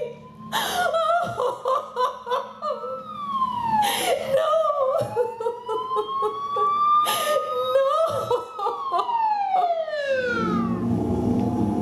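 Ambulance siren wailing, its pitch sweeping slowly up and down and then gliding down near the end, with a few short loud vocal outbursts in between. A low rumble comes in near the end.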